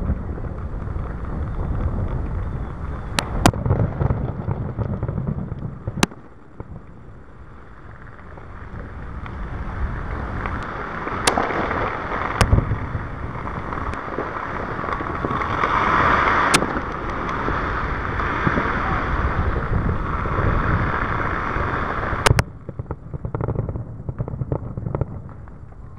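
Aerial fireworks shells bursting: several sharp bangs a few seconds apart over a continuous low rumble, with a hiss swelling in the middle stretch.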